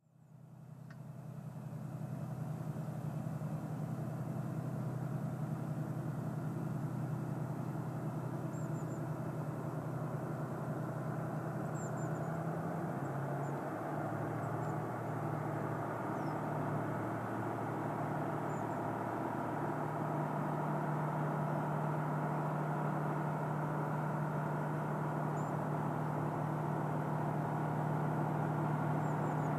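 JR Freight DF200 diesel-electric locomotive's engine running at a steady, low drone, fading in over the first couple of seconds. About 13 seconds in the engine note shifts, then holds steady again, growing slowly louder as the train approaches.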